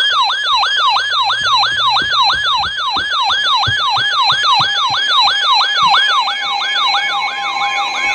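An electronic yelp siren tone: a quick downward sweep in pitch repeated about three and a half times a second. Near the end it fades as the steady two-tone Emergency Alert System attention signal comes in beneath it.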